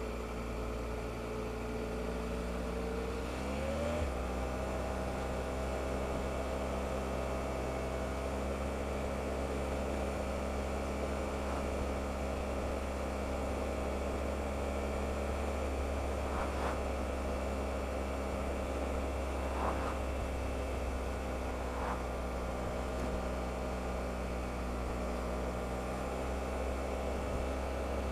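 Triumph Explorer motorcycle's three-cylinder engine running under way, with road and wind noise. The engine note climbs about four seconds in, then holds steady.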